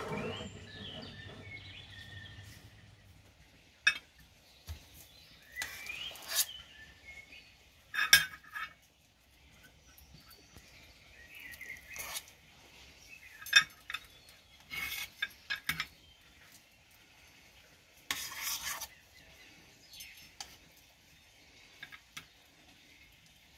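A metal spoon scraping and clinking against a stainless steel pot and a metal ring mould as mashed potato is scooped out and pressed into the ring. The clinks and scrapes come in short separate strokes.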